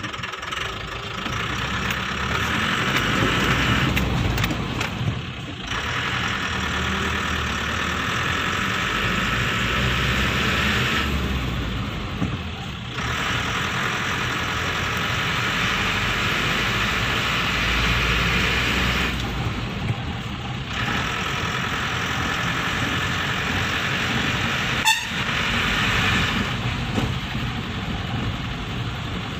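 Inside the cab of an Eicher truck under way: the diesel engine runs with road noise. The engine note drops away briefly a few times, as at gear changes. One short, sharp sound comes a few seconds before the end.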